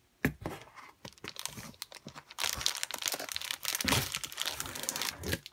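Glossy vintage magazines being handled and shifted in a cardboard box, with crinkling and rustling of paper. A sharp crackle comes just after the start and scattered crackles follow; from about halfway the crinkling becomes continuous.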